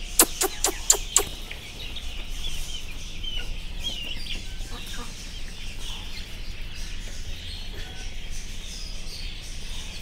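Young desi chickens cheeping and clucking as they crowd around to be fed by hand. It opens with five sharp taps in quick succession, about four a second.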